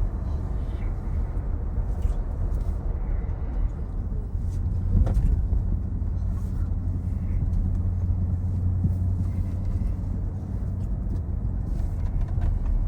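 Steady low rumble of engine and road noise inside a moving car's cabin, with a short knock about five seconds in.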